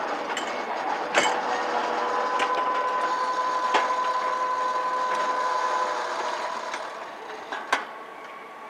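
Kintetsu electric train moving slowly through the station: a steady running noise with a held whine and a few sharp clicks, fading over the last two seconds or so.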